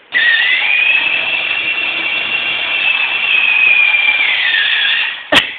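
ATV engine revving up as the machine sets off, holding a steady pitch for about four seconds, then easing off. The recording is harsh and distorted, and a sharp click comes near the end.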